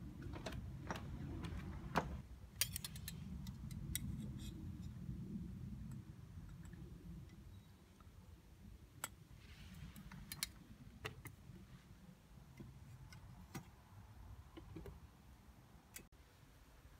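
Faint outdoor ambience: a low, uneven rumble of wind on the microphone with scattered small clicks and taps, several close together about three seconds in.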